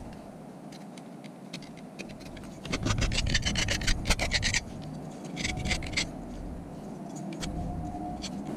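Hand file rasping along the edge of aluminium channel, taking off burrs in quick strokes. A dense run of strokes comes about three seconds in, and a shorter run comes about five and a half seconds in.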